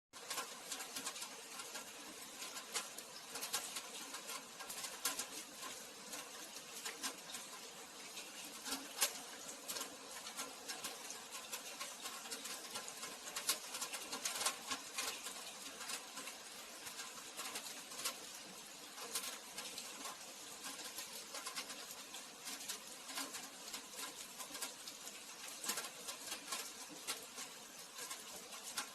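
Rain falling: an even wash of noise with many close drops ticking sharply at irregular moments, little low rumble underneath.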